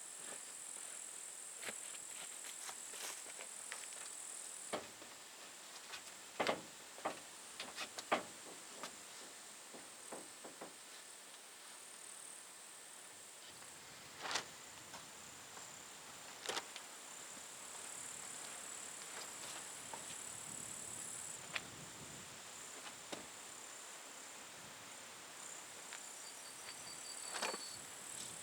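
Faint, steady, high-pitched insect chirring, like crickets in summer grass. Scattered knocks and taps are heard throughout, with a cluster of sharper ones about six to eight seconds in.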